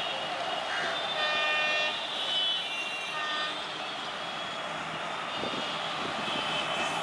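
Indian Railways WAP-1 electric locomotive sounding its horn twice as it pulls away with a passenger train: a blast of about a second starting just over a second in, then a shorter one about three seconds in. Under both is the steady whine of the running locomotive, with a few low knocks near the end.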